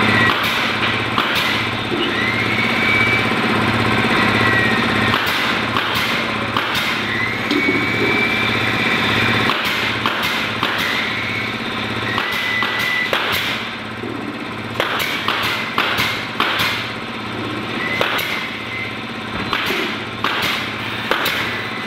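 Pneumatic beehive-box assembling machine firing nails into wooden box boards: sharp shots, often several in quick succession, over a steady low hum of machinery.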